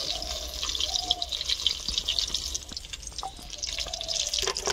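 Small samosas deep-frying in hot oil, a steady dense sizzle and crackle.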